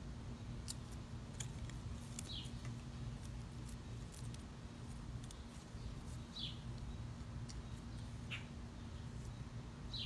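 A bird giving short chirps, each sliding quickly downward, a few seconds apart, over a steady low hum, with faint scattered clicks.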